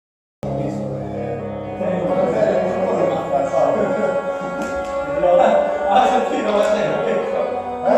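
Music with singing, cutting in abruptly after a brief silence.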